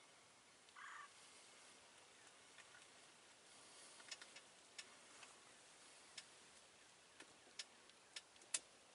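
A short wild turkey call about a second in over a quiet background, then a run of sharp, irregular clicks and taps through the second half, the last and loudest near the end.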